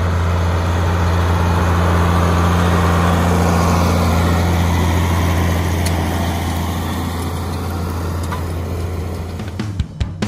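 John Deere 4440 tractor's six-cylinder turbo diesel running steadily under load as it pulls a liquid-nitrogen side-dress applicator through the field, a loud, even low drone that grows somewhat quieter over the last few seconds.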